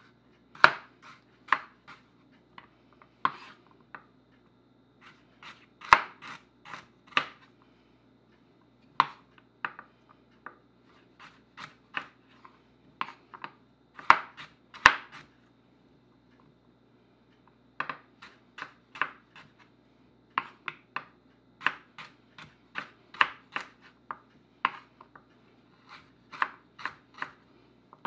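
Chef's knife cutting carrots into julienne strips on a wooden cutting board: sharp taps of the blade on the wood in irregular runs, with short pauses between runs.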